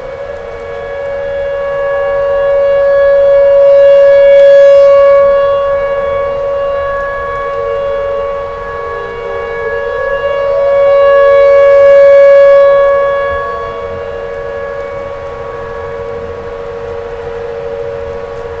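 Outdoor tornado warning siren sounding a steady wail, its loudness swelling and fading twice, about eight seconds apart, with a brief upward slide in pitch before each swell.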